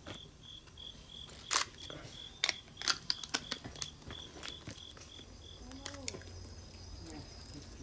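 An insect chirping steadily in short high pulses, about four a second, stops a little over two-thirds of the way through. Scattered sharp clicks and knocks sound over it.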